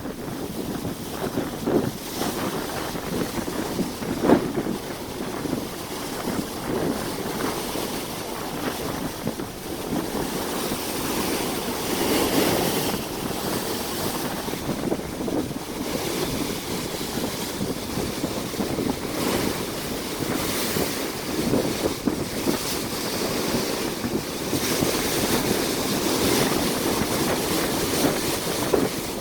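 Ocean waves breaking and washing over rocks, with strong wind buffeting the microphone. The surf swells and fades in surges, loudest about twelve seconds in and again near the end.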